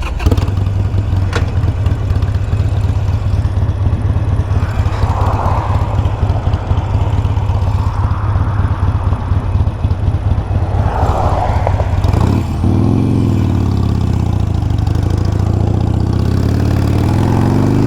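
Harley-Davidson Iron 883's V-twin engine running steadily with dense firing pulses. From about twelve seconds in, the engine note rises and falls in pitch.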